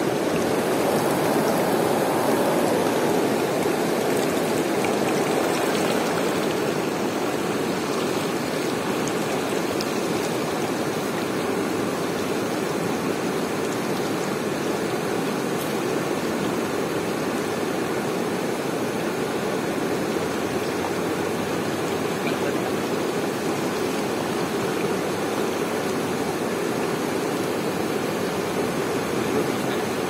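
Chenab River white water rushing over and around boulders in a shallow rapid: a steady, even rush of water.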